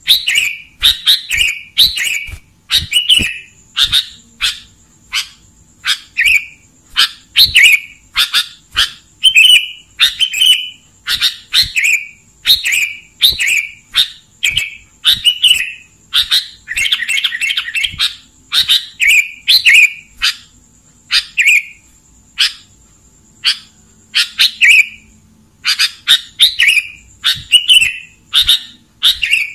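Sooty-headed bulbul (kutilang) singing in short, clear phrases repeated about once or twice a second, with a faint steady high tone in the background.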